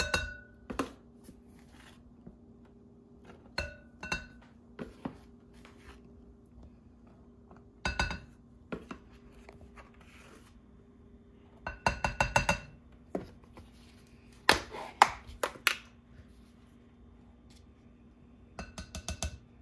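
Measuring cup and measuring spoon clinking and tapping against a glass mixing bowl while powder is scooped in: scattered sharp clinks with a short ring, including quick runs of taps about twelve and fifteen seconds in. A faint steady hum runs underneath.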